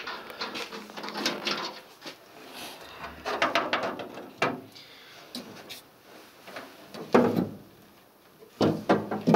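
Sheet-aluminium fuel tank knocking and scraping against the bare steel car body as it is worked into place, in several short bursts of clatter.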